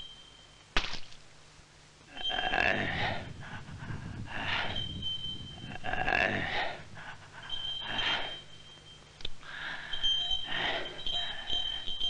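A person's heavy, labored breathing, about five long breaths, with a sharp click about a second in and a faint thin high tone sounding on and off between the breaths.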